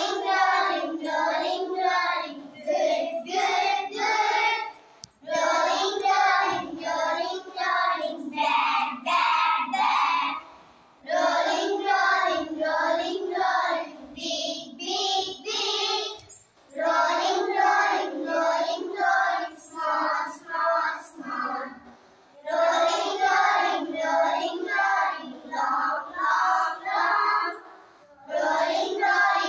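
A group of young schoolchildren singing together in unison, in phrases of about five seconds separated by short breaks.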